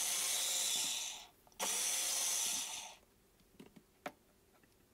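NutriBullet blender running in two short bursts of a second or so each, blending a green smoothie, followed by a few light clicks as the cup is handled.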